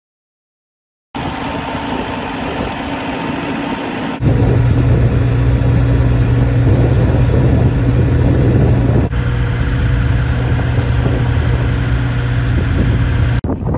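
Small boat's engine running under way, a steady hum with a low drone. It starts about a second in and grows louder about four seconds in.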